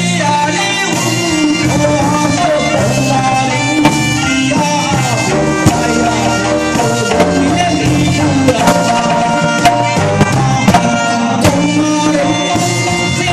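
A man sings through a microphone, backed by a live amplified band of electric guitar, keyboard and drums, with a few sharp drum hits through the song.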